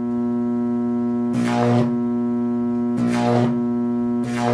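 High-voltage arc across a homemade Jacob's ladder buzzing steadily at mains hum. Three short crackling hisses about a second and a half apart come as the arc burns on a small high-voltage capacitor wired between the rods, melting its leads.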